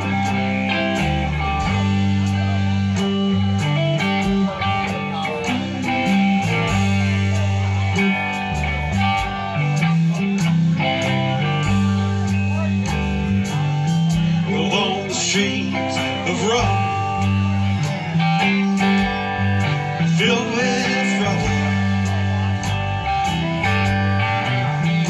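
Live band playing: drums keeping a steady beat under a moving bass line, with electric guitars and an acoustic guitar on top.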